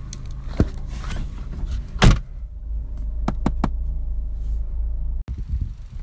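Inside a car with the engine running: a steady low rumble, a brief loud noise about two seconds in, and three quick sharp clicks a little after three seconds. The rumble cuts off suddenly near the end.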